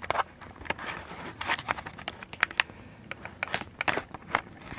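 Camera handling noise: an irregular run of clicks, knocks and rustles as the camera is grabbed and turned around by hand, with clothing brushing against it.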